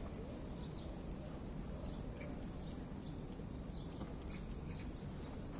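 Black cat and kitten chewing and smacking wet cat food, with soft irregular clicks over a steady low background rumble.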